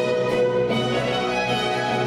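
Orchestral music with bowed strings playing a sustained melody, accompanying a ballet dance.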